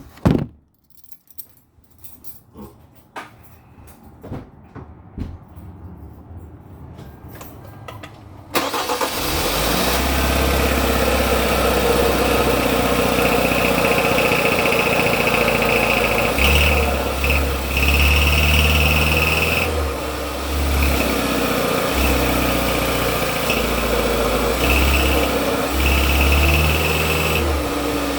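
A few light clicks and knocks, then about eight seconds in a turbocharged Kia engine starts and runs at cold idle with a loud rattle. The owner traced the rattle to a failing turbocharger bearing.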